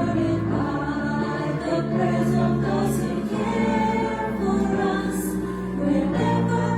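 A choir singing, with long held chords.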